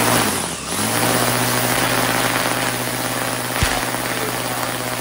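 Handheld Bosch angle grinder running at full speed with a short string whipping round on its head, giving a dense stream of cracks as the string tip breaks the sound barrier. One sharper crack stands out about three and a half seconds in.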